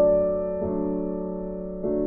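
Background music: slow, sustained keyboard chords, with a new chord coming in about every second.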